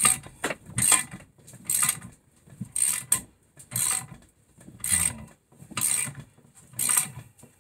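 Hand socket ratchet clicking in back-and-forth strokes, about one a second, eight times, as the bolts of a four-piston brake caliper are tightened.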